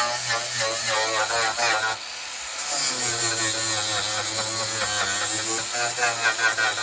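A small electric power tool running, its motor pitch wavering as it is worked against the panel, probably while stripping paint or filler. It cuts out briefly about two seconds in, then starts up again.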